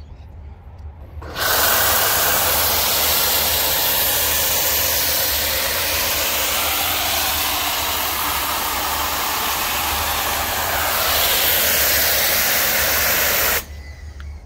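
Snow foam cannon on an electric Gerni pressure washer spraying thick foam: a loud, steady hiss that starts about a second in and cuts off sharply near the end, over a steady low hum.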